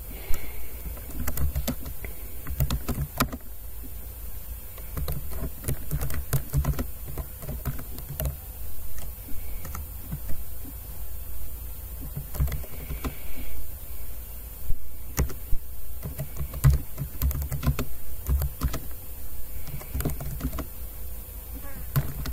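Typing on a computer keyboard: a run of quick, irregular keystroke clicks with short pauses between bursts, over a steady high hiss.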